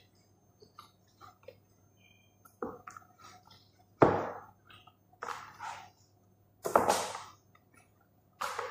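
Kitchen handling noises while chicken is being put into a pot: a handful of sharp knocks and clatters, the loudest about four seconds in.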